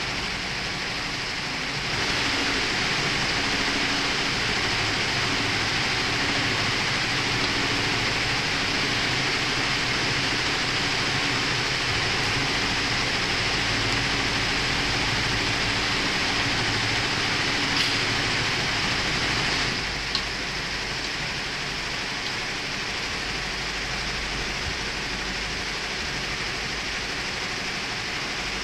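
Steady machine-room hum and hiss, which swells about two seconds in and drops back about two-thirds of the way through, with two faint clicks near the drop.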